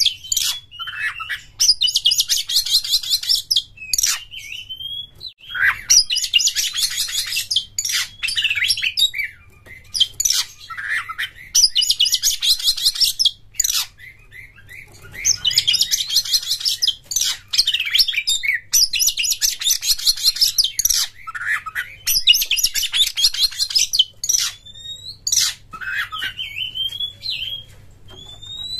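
Oriental magpie-robin (kacer) song in repeated bursts of fast, rattling chatter, each a second or two long and coming every few seconds, with short whistled notes and slurred calls between them. Near the end only the short notes remain.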